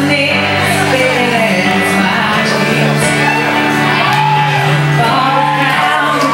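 Live rock band playing: a woman sings lead into a microphone over electric guitar and drums, with cymbals ringing steadily.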